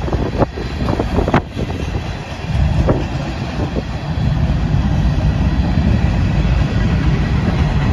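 Freight cars of a passing manifest train, covered hoppers and tank cars, rolling by with a steady low rumble and a few sharp clacks of wheels over the rail joints.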